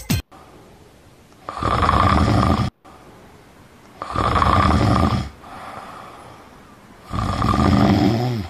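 A man snoring loudly: three long, rasping snores about three seconds apart, with quieter breaths between.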